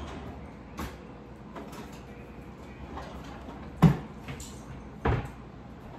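Kitchen handling noise: things being picked up and set down on a counter, with two sharp knocks about four seconds in and again about a second later.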